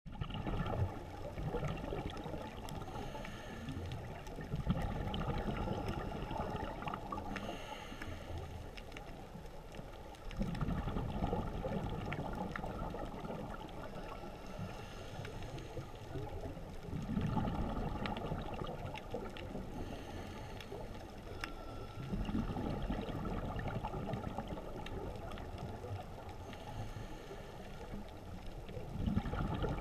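Underwater sound picked up by a camera filming on the seabed: a low, rushing water noise that swells and eases every five to six seconds.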